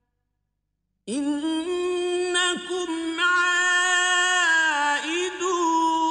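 Male reciter chanting a Quran verse in Arabic in the melodic tajwid style, holding long notes with ornamented turns and glides. It begins suddenly about a second in, after a brief silence.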